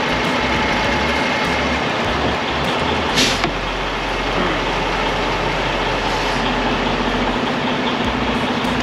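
Truck stop fuel island noise: diesel truck engines idling under a steady rush of sound, with a brief sharp hiss about three seconds in.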